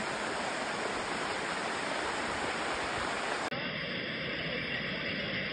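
Steady rushing of muddy floodwater carrying debris. About three and a half seconds in, the sound abruptly turns duller.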